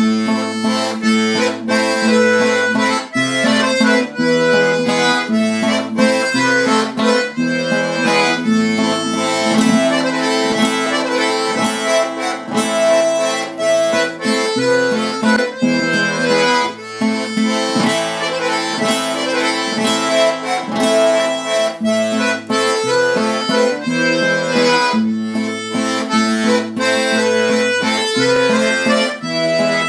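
Instrumental folk music played on a free-reed instrument, harmonica- or accordion-like, carrying a melody of sustained notes over a moving bass and quick plucked-style accompaniment.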